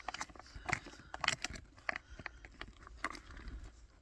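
Close mouth sounds of someone chewing a sticky chocolate brownie pudding, a run of small irregular wet clicks and smacks.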